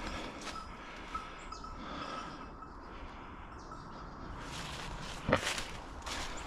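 Footsteps and rustling through woodland undergrowth, with one louder crunch a little past five seconds in.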